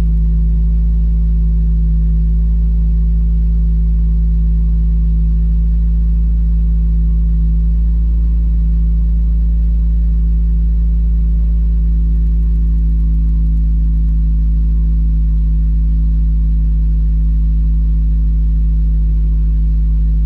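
Subaru WRX's FA20DIT turbocharged 2.0-litre flat-four idling steadily, just started after the cylinder 1 and 3 coil packs were swapped to test a cylinder 1 misfire.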